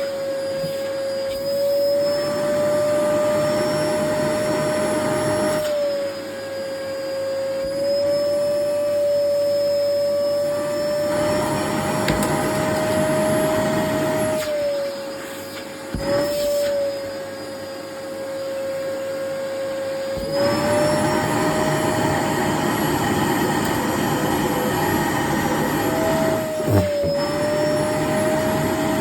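Vacuum cleaner running with its floor nozzle removed, the bare pipe sucking at clothes. A steady motor whine shifts slightly in pitch while the rush of air swells and drops every few seconds, as the pull on the fabric changes.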